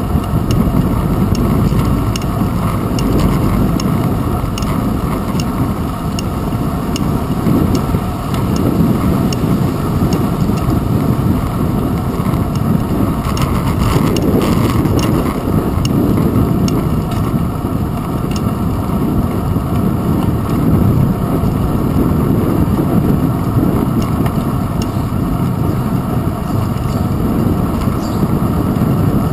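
Steady rumble of a bicycle in motion, picked up by a handlebar-mounted GoPro: wind on the camera and the vibration of the tyres and frame, with faint regular ticking. About halfway through there is a brief rattle as the tyres cross paving blocks.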